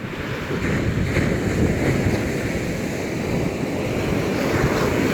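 Rough sea surf breaking under strong wind, with the wind buffeting the microphone in a steady low rumble.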